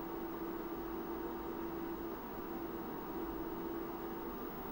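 Steady hum and fan noise of running electronic equipment, with a constant mid-pitched tone over an even hiss.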